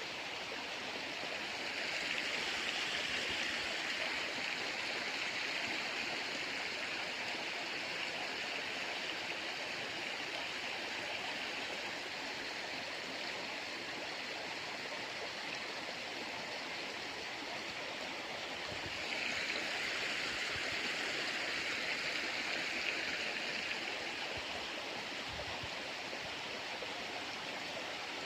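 Water of a small river flowing, a steady rushing that swells louder twice.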